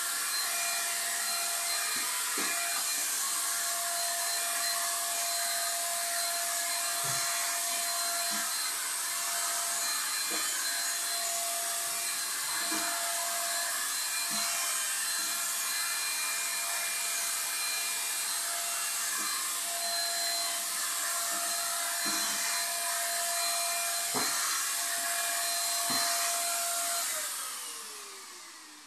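Handheld electric paint spray gun running steadily, a constant motor whine over a strong hiss of air, with a few light knocks. Near the end it is switched off and the motor winds down, the whine falling in pitch and fading.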